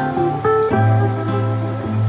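Instrumental break of a live acoustic song: guitar and mandolin playing plucked notes, with a low note held from about three quarters of a second in.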